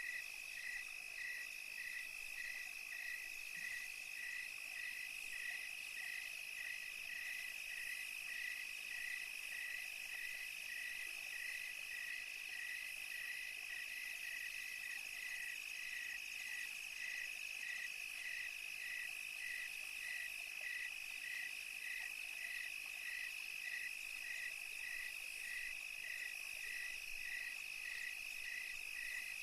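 Nighttime chorus of insects and frogs: a continuous high-pitched trill with a second call pulsing evenly, about twice a second, beneath it.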